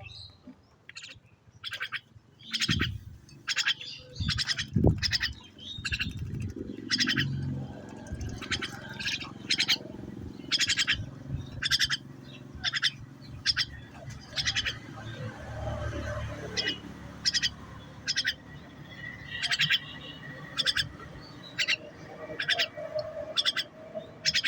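A small bird chirping over and over in short, sharp calls, roughly one or two a second, over a low rumble.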